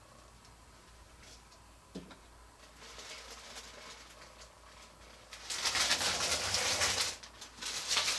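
Hands handling statue parts and their packing: a few faint clicks and taps, then, a little over halfway in, loud rustling of packing material for about two seconds, which stops briefly and starts again near the end.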